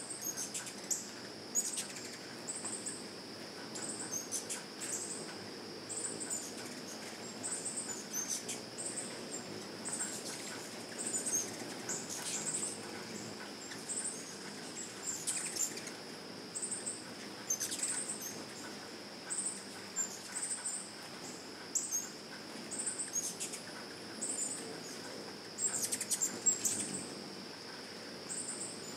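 Ruby-throated hummingbirds at nectar feeders give sharp, irregular chip calls, with the whir of their wings as they fly in. Beneath them run a steady high insect drone and a short high call that repeats about every 0.7 s.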